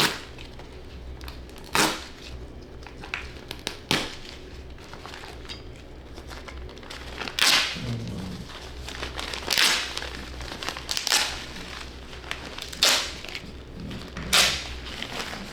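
Short rasping rips and rustles from the fabric cover of an upholstered chair being worked by hand, about eight of them, each under half a second, a second or two apart, over a faint low hum.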